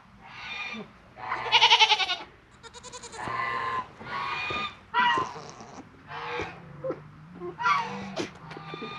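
Several goats bleating over and over, about eight or nine separate wavering calls, the loudest about a second and a half in and one with a fast flutter near three seconds; they are waiting to be fed.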